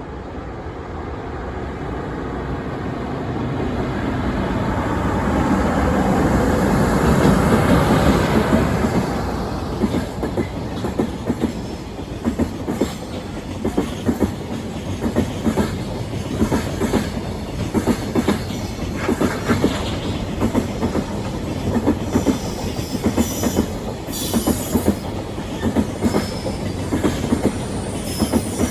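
A train approaching and passing close by, loudest about seven to eight seconds in. After that its wheels click over the rail joints in a steady clickety-clack as the cars roll past.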